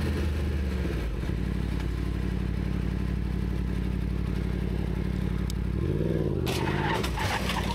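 Yamaha MT-10's crossplane inline-four engine running steadily under way, with wind noise over the microphone. About six seconds in the revs dip and rise again, and the wind noise grows louder.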